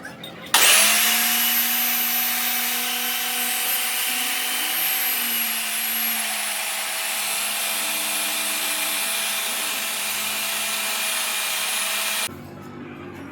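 Grinding machine sharpening the blade of a steel cutting die: a steady abrasive hiss with a high whine over it. It starts abruptly about half a second in and cuts off suddenly about a second before the end.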